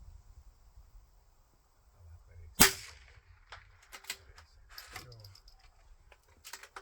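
A single .22 LR rifle shot about two and a half seconds in, followed by several lighter metallic clicks and clacks, typical of the rifle's bolt being worked for the next shot.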